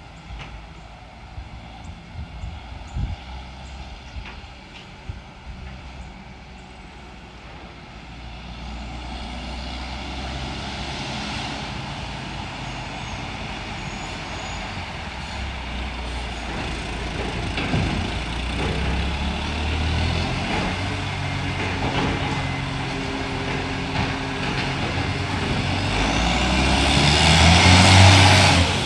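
Garbage truck's Euro 6 diesel engine with an exhaust leak, coming closer and growing steadily louder from about eight seconds in, loudest near the end.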